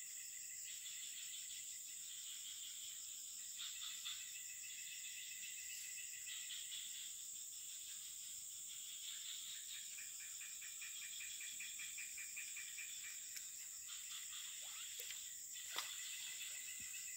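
Chorus of insects and frogs: a steady high insect drone, with pulsed trilling calls that come and go every second or two. Near the end come a few short falling chirps and a single click.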